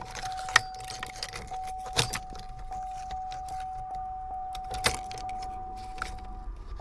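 Keys clicking and jangling at a 2008 Chevy Suburban's ignition switch as the key is turned with a spare chip key held beside it, the engine not cranking, while a steady electronic tone sounds under the clicks.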